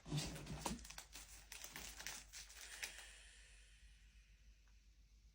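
Packaging crinkling and rustling as items are handled and unwrapped, busiest over the first three seconds and then thinning out to quiet.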